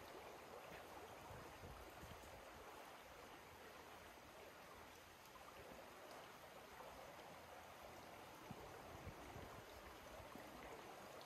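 Faint, steady rush of a small creek's flowing water.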